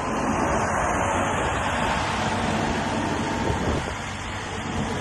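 Wacker Neuson EZ50 mini excavator's diesel engine running steadily, with a broad rushing noise over it.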